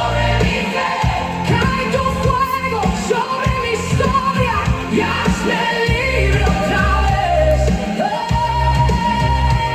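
Worship music with a singing voice holding long, sliding notes over a steady, heavy bass.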